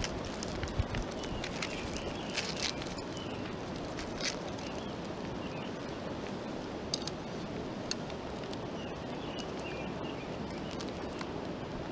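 Sticks and a knife prodding and peeling open a foil parcel of trout in hot ashes: a few light clicks, scrapes and foil crinkles, scattered through. Under them a steady outdoor rushing noise, with faint bird chirps.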